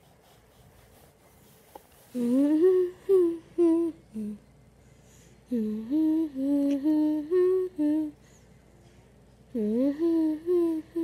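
A boy humming a tune with his lips closed, in three short phrases of held notes that step up and down in pitch, starting about two seconds in.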